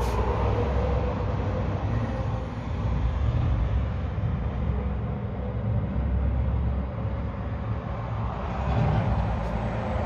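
Road traffic going by: a steady low rumble of passing cars and trucks.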